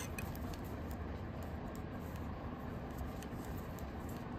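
Faint light clicks of knitting needles as stitches are worked, over a steady low background hum.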